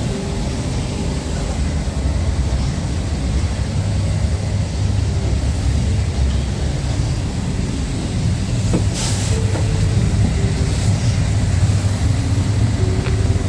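Steady low rumble of a vehicle in motion, with a brief hiss about nine seconds in.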